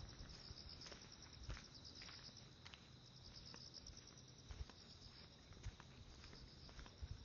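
Insects chirring faintly and steadily in a high, fast-pulsing trill, with a few soft footsteps and light taps underneath.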